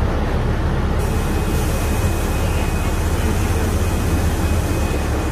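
NefAZ 5299 city bus heard from inside the passenger cabin: a steady low engine rumble with road and cabin noise. About a second in, a steady hiss comes in over it, with a faint high whine.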